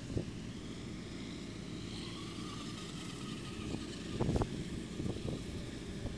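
Steady low engine rumble of a street sweeper working the street, with a few low thumps from about four seconds in.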